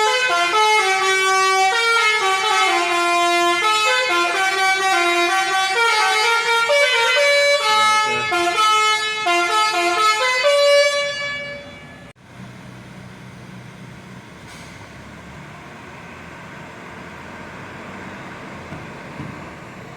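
Basuri V4 telolet horn on a bus playing a melody of quick stepped notes, then cutting off about eleven seconds in. A steady low engine hum follows, much quieter.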